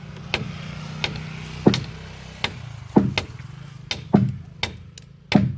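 Repeated chopping blows of a hand tool biting into wood, about nine strikes at an uneven pace, over a steady low engine hum.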